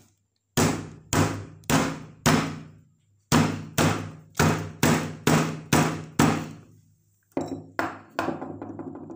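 Roasted, peeled ginger and kencur being smashed inside a plastic bag to bruise them. A series of heavy thuds: four about half a second apart, a short pause, then seven more at the same pace, and a few lighter knocks near the end.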